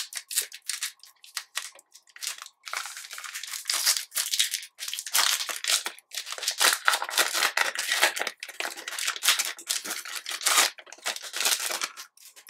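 Foil trading-card pack wrapper being torn open and crinkled by hand: a dense, irregular run of crackling and rustling with brief pauses.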